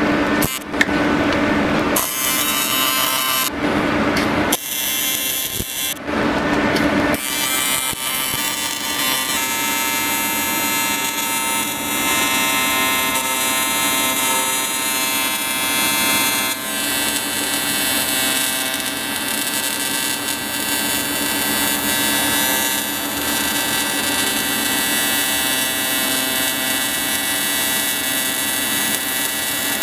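AC TIG welding arc on cast aluminium, run at about 250 amps with a 125 Hz AC frequency, giving a steady buzzing hiss. It is broken up for the first several seconds, then holds steady as the bead goes around the plate.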